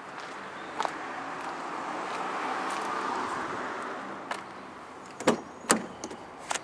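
Vauxhall Astra door handle and latch clicking as the car door is opened: a few sharp clicks near the end, the two loudest close together. Before them a rushing noise swells and fades over a few seconds.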